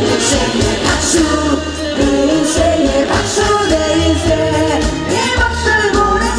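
A woman singing a trot song live into a microphone, backed by a live band with drums and keyboards keeping a steady beat.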